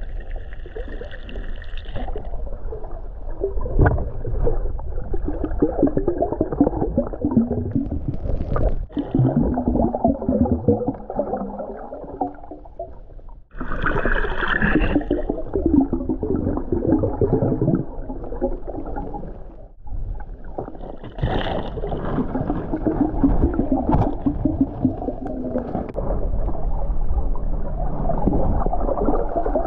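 Underwater sound picked up by an action camera in its waterproof housing while snorkelling: muffled gurgling and sloshing of water, with a few short brighter splashing bursts.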